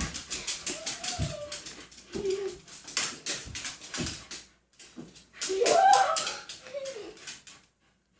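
A dog whimpering and whining in short cries that rise and fall, the loudest about two-thirds of the way through, over a rapid run of sharp clicks.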